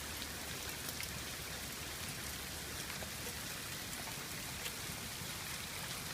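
Small hailstones falling steadily: a continuous hiss with many scattered sharp ticks of ice pellets striking surfaces.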